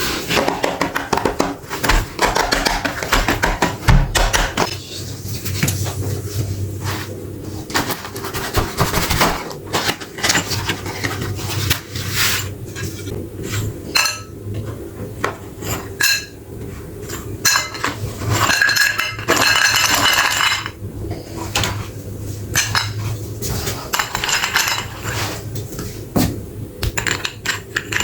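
Meat grinder crushing hard, brittle pieces: dense irregular crunching and clattering clicks over a low steady hum, with a louder, thicker stretch of grinding about two-thirds of the way through.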